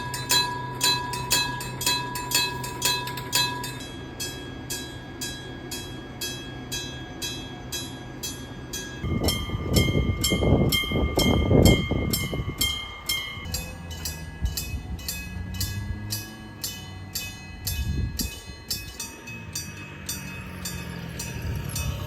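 Japanese level-crossing warning bell of the struck-gong type, ringing with rapid, even strikes. About nine seconds in, a train passes with a loud rumble lasting about four seconds, while the bell keeps striking.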